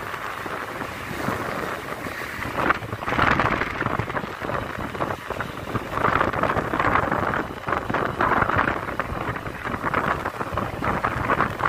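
Wind buffeting the microphone on a moving motorbike, with a rushing noise that swells and fades in gusts, over road and traffic noise.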